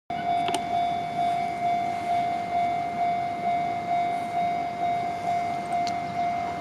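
Japanese railway level-crossing warning bell ringing: an electronic ding repeated steadily about twice a second, each stroke fading before the next. It signals that a train is approaching the crossing.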